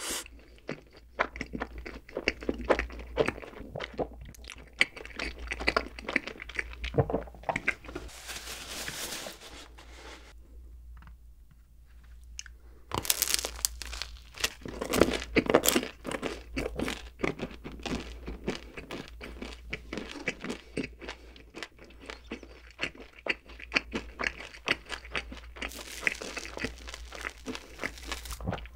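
Close-miked eating sounds: wet mouth and lip smacking and chewing, with crackly crunches as a baguette's crust is bitten and chewed. There is a quieter pause of a couple of seconds just before the middle, then a busy run of crunching bites.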